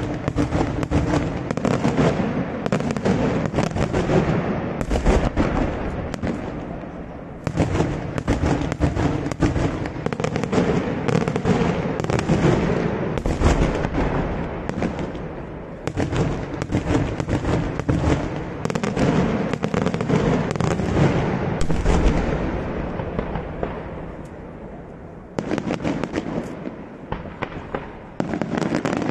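Daytime fireworks display: aerial shells bursting in dense, rapid volleys of bangs and crackle. The volleys come in several waves that build and die away, with a short lull near the end before another volley.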